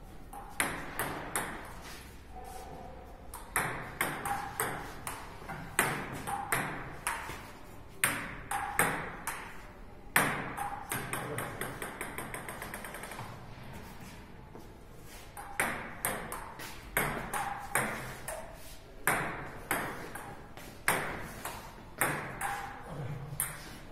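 Table tennis rallies: the plastic ball clicks back and forth between paddles and table, about two hits a second. Many of the hits carry a short pitched ping. The hitting thins out for a few seconds midway, then picks up again.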